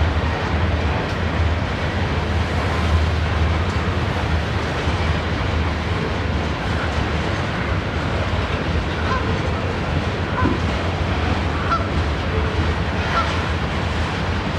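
Freight train of ore hopper cars rolling steadily past: a continuous low rumble with wheel and rail noise. A few faint short calls sound over it late on.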